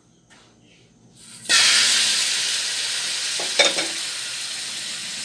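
Raw chicken pieces going into hot cooking oil in a metal pan: a loud sizzle starts suddenly about a second and a half in and keeps going, easing slightly, with a brief knock about two seconds after it starts.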